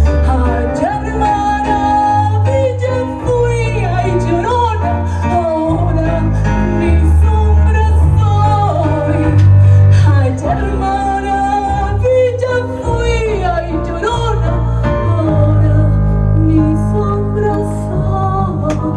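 Music: a wavering melodic line over sustained bass notes that change every second or so.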